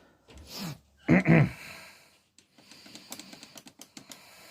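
A brief murmur from a voice about a second in, then an irregular run of small plastic clicks from about halfway through: buttons being pressed to change the TV's input.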